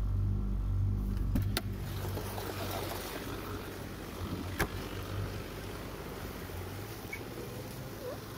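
Low rumble inside a Mitsubishi Pajero's cabin, cut off by the door unlatching and opening about a second and a half in, which lets in street noise with traffic. A sharp knock of the door shutting comes a little past halfway.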